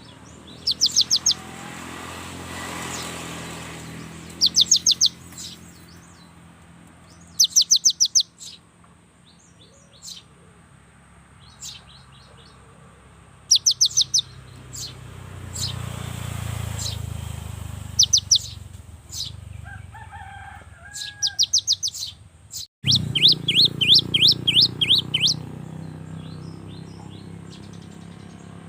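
Cinereous tit singing in short bursts of rapid, high, sharp repeated notes, about seven bursts with pauses between, the longest run near the end. A low steady hum lies underneath.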